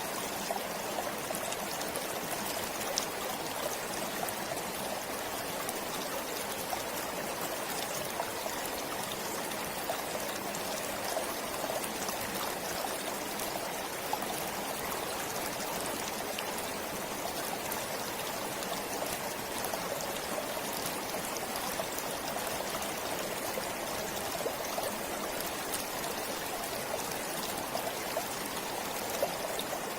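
Forest stream flowing steadily, water running and babbling over stones with small splashes here and there.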